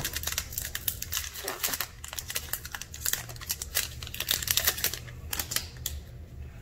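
Foil trading-card booster pack wrapper crinkling and crackling as it is torn open by hand and the cards are pulled out. The crinkling stops about a second before the end.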